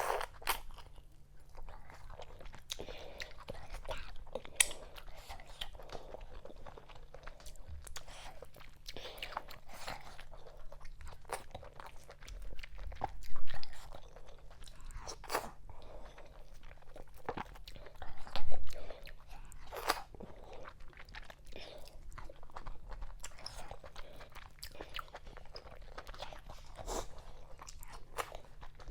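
Close-miked eating sounds of fufu with okra vegetable soup: wet chewing, smacking and small mouth clicks throughout, with two louder low bumps about 13 and 18 seconds in.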